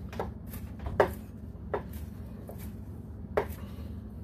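Chef's knife chopping cilantro on a cutting board: about six irregularly spaced knocks of the blade hitting the board, the one about a second in the loudest.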